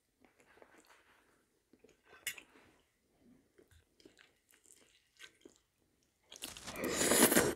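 Faint clicks of a fork against a plate and soft eating sounds as a stuffed bell pepper is cut apart, then, near the end, a loud rough noise lasting about a second.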